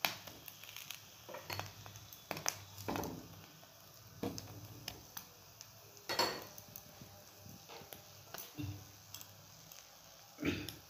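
Metal spoon scraping and clicking against a hot flat pan as sauce is spread over an egg-coated roti, in short irregular strokes with a few louder scrapes, over a faint sizzle.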